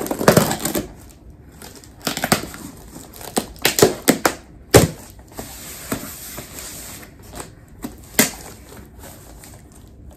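A shipping package being forced open with a pen used to pierce and rip the tape and packaging: irregular scraping, tearing and crinkling, broken by sharp clicks and knocks. The loudest knocks come just after the start and about five seconds in.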